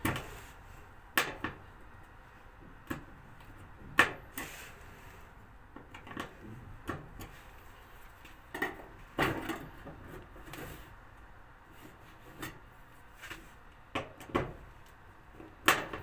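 Scattered knocks and clicks of hands and a hand tool working at a washing machine's casing, trying to loosen a part that won't come off.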